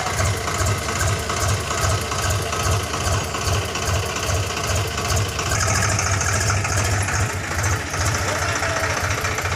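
Chainsaw engine running steadily, its sound changing a little about halfway through.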